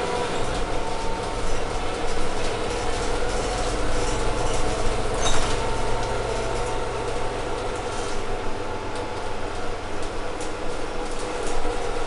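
Cabin noise inside a Mercedes-Benz Citaro G C2 articulated bus on the move: a steady low drone from the engine and drivetrain, with road noise and light rattling of the interior fittings. A brief knock about five seconds in.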